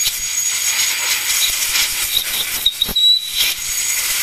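Compressed-air blow gun hissing steadily as it blows scraped gasket debris off the engine block around the distributor bore, with a thin whistle above the hiss.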